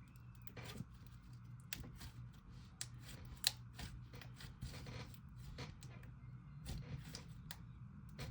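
Slime being handled and squeezed, making irregular small clicks and pops, with one sharper pop about three and a half seconds in.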